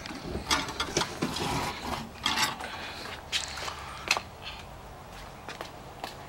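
Handling of a welded nuts-and-bolts metal figure: irregular clicks, taps and short scrapes, thickest in the first three seconds and then only a few scattered clicks.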